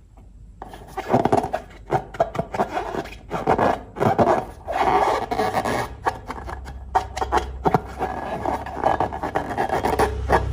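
Slime being worked by hand, stirred and squished in a container, with irregular rubbing and scraping strokes that begin just under a second in.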